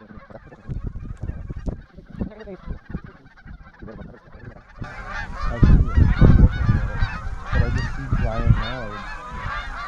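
A large flock of Canada geese honking, many birds calling over one another, growing louder and denser about halfway through. Strong wind gusts rumble on the microphone.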